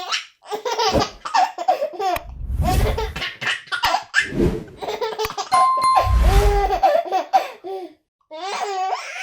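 A baby laughing hard, in repeated bursts of belly laughs and giggles with short breaths between. Two brief low rumbles and a short steady beep are heard about halfway through.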